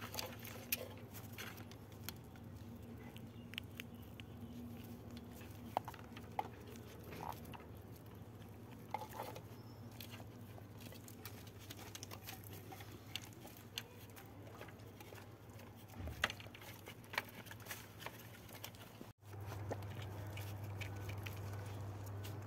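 A puppy rooting and chewing among cables on concrete: scattered small clicks, taps and scuffs over a steady low hum, with a brief dropout near the end.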